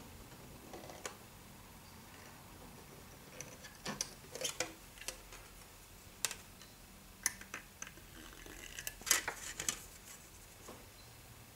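Scattered light clicks and taps of a thin plastic model kit panel being handled and turned over on a cutting mat. They come in small clusters about four seconds in and again around nine seconds.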